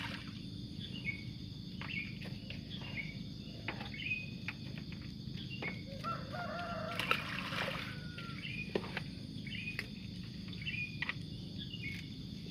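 A bird repeats a short falling chirp about once a second, and a rooster crows once, starting about six seconds in and lasting nearly two seconds. A few short knocks and a steady low outdoor hum lie underneath.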